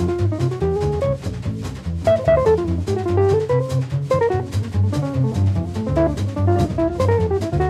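Small cool-jazz group recording with the drum kit out front: busy snare and bass-drum strokes over low bass notes and a wandering melodic line, probably guitar.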